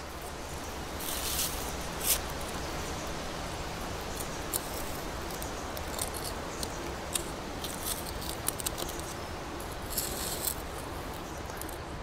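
Scattered short clicks, crackles and scrapes of hands and a small hand tool working in dry leaf litter and soil to dig up forest seedlings, over a steady background hiss. There are a few brief, louder scraping bursts about a second in and again near the end.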